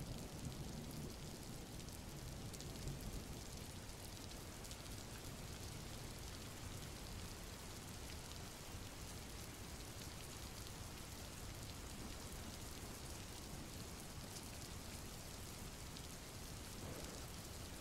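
Faint, steady rain: an even hiss of falling drops.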